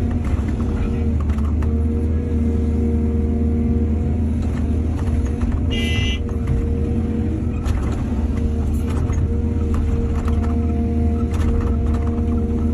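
Excavator diesel engine running steadily, with scattered short knocks and a brief high-pitched squeal about halfway through.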